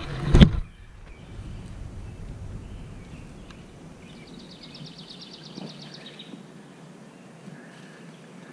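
A sharp knock and rustle of the camera being handled at the start, then a quiet outdoor hum of distant road traffic, with a rapid high trill lasting about a second and a half in the middle.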